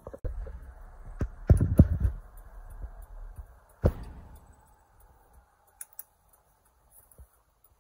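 Knocks and bumps from a handheld phone being moved about inside a moving car, over a low rumble. The loudest knocks come in a cluster between one and two seconds in, and one more comes near four seconds. After that the rumble fades to near quiet with a few faint clicks.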